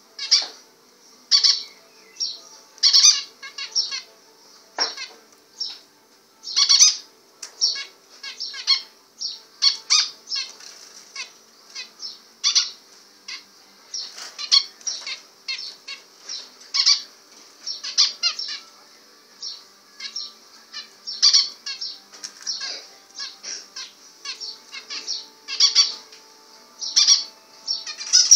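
Zebra finches calling and singing: a steady stream of short, high-pitched calls and chatter in quick, irregular bursts with brief gaps.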